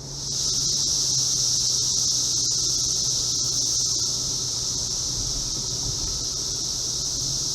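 Chorus of Brood X periodical cicadas: a loud, steady, high-pitched buzzing drone.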